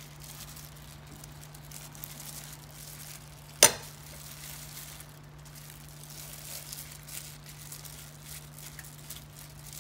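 A plastic-gloved hand pressing and turning marinated chicken in seasoned flour on a plate: soft rustling of the glove and flour, with one sharp knock a little over three and a half seconds in. A steady low hum runs underneath.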